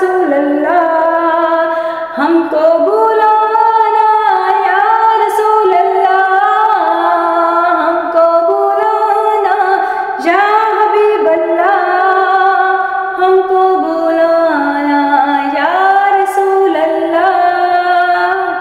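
A woman singing an Urdu naat solo and without accompaniment, in long held notes that glide and ornament between pitches.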